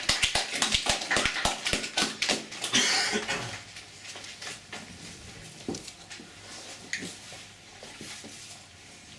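Several people snapping their fingers in quick, irregular clicks, the snapped applause that follows the end of a poem read aloud. It dies away about three and a half seconds in, leaving quiet room noise with a few faint knocks.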